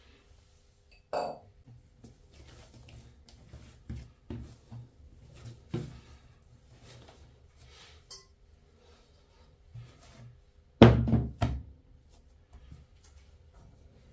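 Soft thuds and rubbing of bread dough being kneaded and pressed on a tabletop, then two heavy knocks about eleven seconds in as a serving bowl is set down on the table.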